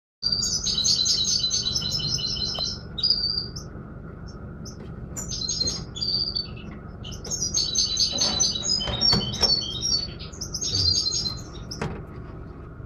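European goldfinch singing: bursts of fast, high twittering phrases with short pauses between them, over a low steady hum.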